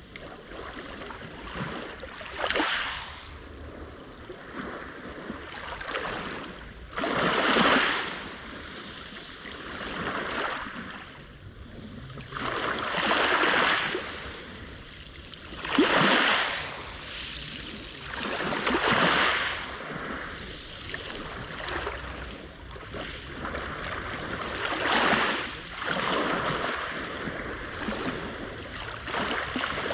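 Black Sea waves breaking on the shore. Each wave comes in as a swell of rushing surf about every three seconds, some breaking more sharply than others.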